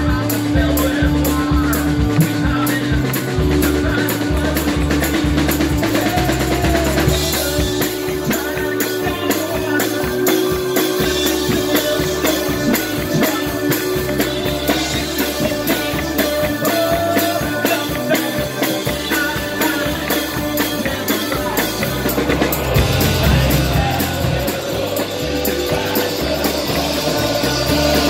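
Live amplified band playing loudly: drum kit, electric guitar and keyboard, with singing over the top.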